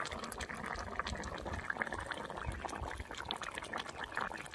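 Buffalo meat stew boiling in a large metal kadai over a wood fire: a steady bubbling made of many small pops.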